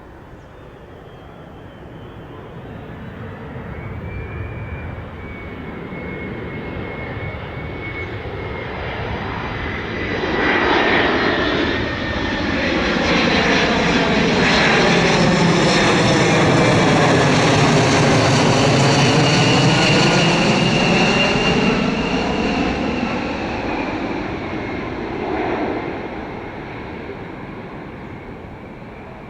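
Jet airliner's engines passing close by: a rush with a high whine that builds over about ten seconds, is loudest in the middle, then fades away.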